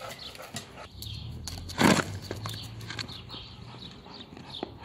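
Birds chirping repeatedly in short, falling notes, with one loud thump about two seconds in.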